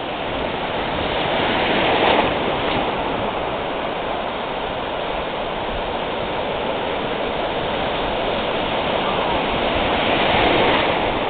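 Ocean surf breaking and washing up the beach: a steady rush of water that swells louder about two seconds in and again near the end as waves break.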